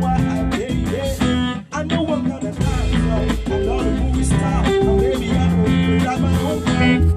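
A small band playing together: electric bass, guitars and saxophone, with a man singing into a microphone. The playing drops out briefly about a second and a half in, then carries on.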